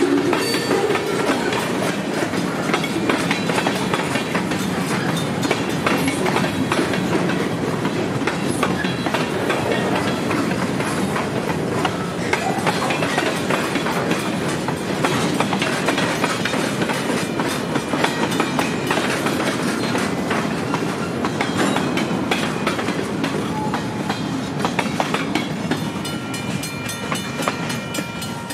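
Freight train tank cars and boxcars rolling past, steel wheels clicking and rattling over the rail joints. The sound eases off near the end as the last car clears.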